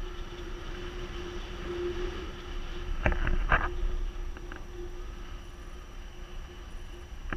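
Airflow of a paraglider in flight buffeting the camera microphone, a steady low rush with a faint steady tone underneath. A short cluster of sharp knocks comes about three seconds in.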